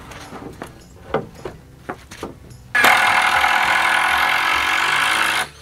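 A few light knocks of a wooden board against the greenhouse's timber frame, then a cordless power driver runs steadily for about two and a half seconds, driving a screw to fasten the brace board to the frame, and stops suddenly.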